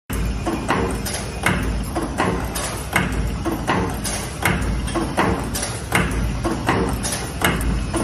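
All-servo wire forming machine running at high speed making wire packing buckles: its tool slides clack in a steady cycle, a sharp clack about every three-quarters of a second with lighter clicks between, over a steady low hum.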